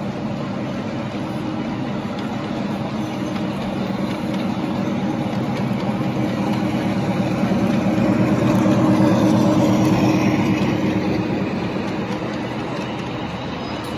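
Large-scale model Amtrak diesel locomotive and passenger cars running along the track: a steady rolling rumble and motor hum that swells as the locomotive passes close, loudest about two-thirds of the way through, then eases as the cars go by.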